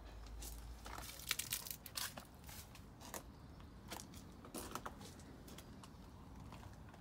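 Irregular crunching footsteps with small clicks, spaced about half a second to a second apart and heaviest in the first half.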